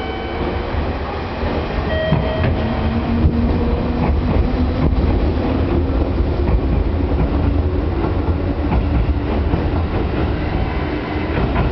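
JR Central 211 series electric multiple unit pulling away and passing close by, its motors whining and rising slowly in pitch as it gathers speed, over a heavy rumble with wheel clatter on the rails.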